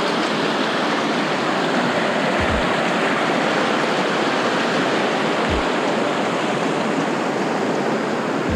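Fast whitewater mountain creek rushing over rocks, a steady wash of water noise, with a couple of brief low thuds.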